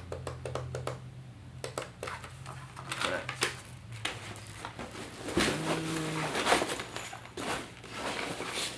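Clicks, taps and rustling of camera accessories and packaging being handled and unpacked, over a low steady hum that fades out about four seconds in.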